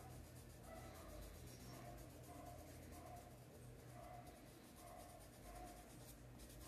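Faint scratching of a paintbrush rubbing fabric paint into coarse black sackcloth, in steady back-and-forth strokes.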